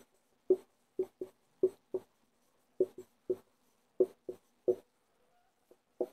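Writing on a surface: short, irregular tapping strokes, two or three a second, with a gap of about a second near the end.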